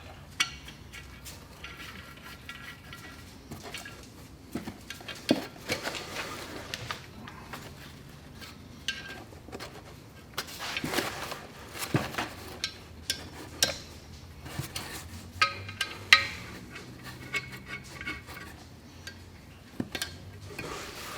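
Metal tools and parts clinking and knocking at irregular intervals during hands-on clutch and flywheel work, over faint background music.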